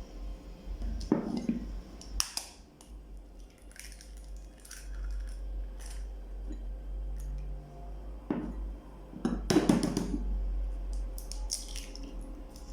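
Dishes and utensils clinking and knocking against a mixing bowl, a few separate knocks, as cake-batter ingredients are put into the bowl.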